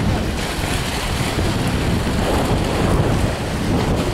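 Wind buffeting the microphone with a steady low rumble over the wash of sea waves breaking on rocks.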